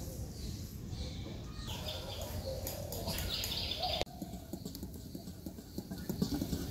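Egg whites being beaten by hand with a wire whisk in a bowl, a soft rhythmic clatter that grows louder near the end, with birds chirping in the background.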